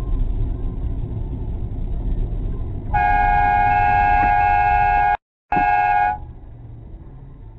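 Car horn honking in one long blast of about two seconds, then a short second honk after a brief break, over the low rumble of a car driving on the road.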